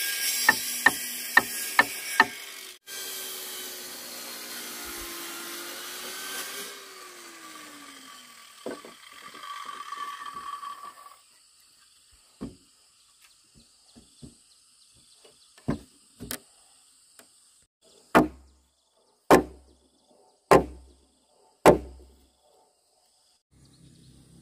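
Woodworking power tool running with a loud hiss and a steady whine, winding down after about seven seconds. Quick hammer taps on wood come over it at the start. After a lull, scattered strikes lead into four heavy blows on wood about a second apart near the end.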